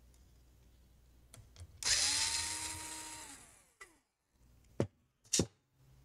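Cordless drill-driver spinning for about a second and a half as it backs out a laptop heatsink screw. Its whine holds steady, then drops in pitch as the motor winds down. Two sharp clicks follow in quick succession near the end.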